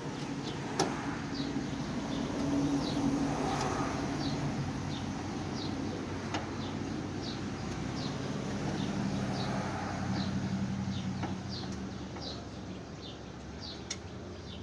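A bird chirping over and over, short falling chirps repeating about every half second to second, over a low vehicle hum. A few sharp knocks sound, one about a second in, one near the middle and one near the end.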